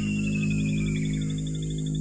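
Background music: a steady low drone with a high tone gliding slowly downward, giving way about a second in to a quick high pulsing tone.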